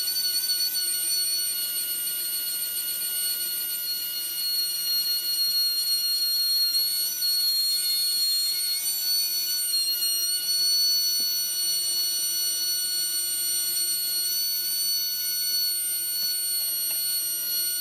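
Low-ohm Mabuchi SH-030-style can motor running unloaded at high speed, a steady high-pitched whine made of several held tones. Its roughly 0.2-ohm armature is drawing about an amp at around 10 volts, an overload that is overheating the commutator and brushes.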